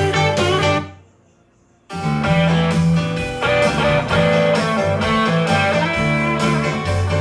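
Guitar-led music with a strong bass line played back through a speaker. It fades out about a second in and comes back suddenly about a second later.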